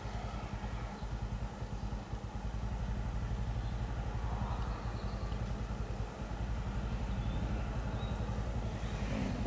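Low, steady engine rumble of a vehicle, growing a little louder about two and a half seconds in.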